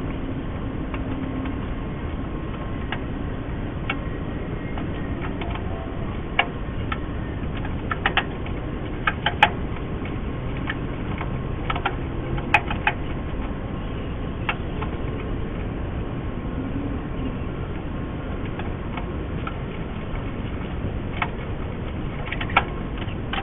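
Scattered light metallic clinks and taps from hand work on a car body tub mounted on a rotisserie, over a steady background hum.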